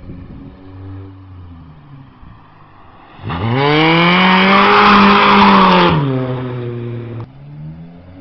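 Toyota AE86 drifting. The engine's revs rise and fall on the throttle, then about three seconds in they sweep up and hold high while the tyres squeal for around three seconds. The revs then fall away and cut back sharply near the end.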